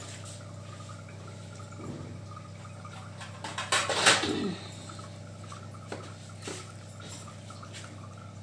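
Pan of fish-curry gravy heating on a gas stove, not yet at the boil: a steady low hum and hiss of liquid. About four seconds in there is one short, louder sound that falls in pitch, and a couple of light ticks a little later.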